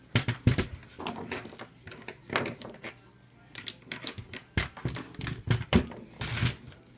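Irregular clicks and knocks of hard plastic and metal as a netbook's LCD panel and hinge brackets are handled and refitted, with a short rustle near the end.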